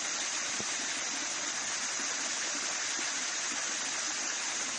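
Liquid acid being discharged from a tanker truck and pouring onto a slag heap: a steady rushing hiss that does not change.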